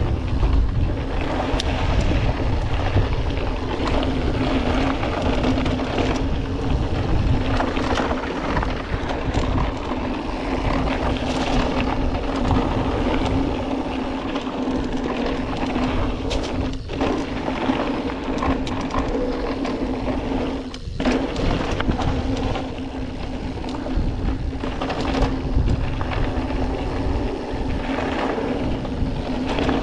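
Mountain bike riding fast down a dirt and gravel trail: continuous tyre and trail noise with the bike rattling, low wind rumble on the helmet or bike camera's microphone, and a steady hum underneath. The noise cuts out briefly twice, a little past halfway.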